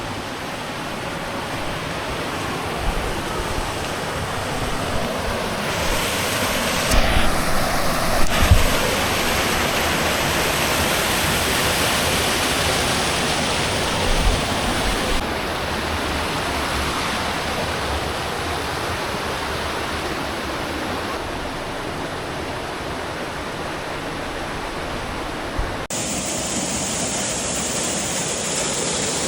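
Waterfall rushing: a steady, loud roar of falling water close by, its tone changing abruptly a few times, with a few low thumps about seven to nine seconds in.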